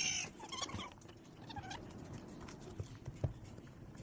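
Barn animals calling: three short high calls, each bending in pitch, in the first two seconds, then a few soft knocks and thumps.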